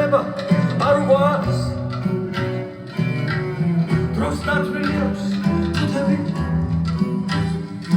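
Folk song with guitar, played back through a DIY spiral Voigt pipe loudspeaker with a 6-inch full-range driver and recorded on a phone. The music dips briefly about three seconds in.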